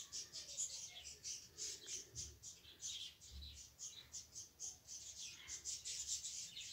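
A spatula scraping and stirring a thick masala in a steel pot: a run of faint scratchy strokes, a few per second.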